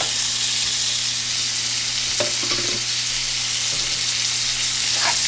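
Chopped raw chicken sizzling in hot oil in a pan with sautéed onion, ginger, garlic and spices; the sizzle starts suddenly as the chicken goes into the pan and then holds steady.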